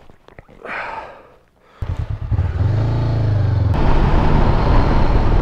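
Honda CB500X parallel-twin engine coming back in after about two quiet seconds of soft clicks and rustling. The engine pitch swings up and down as the bike gets under way, then it runs steadily with wind noise on a dirt road.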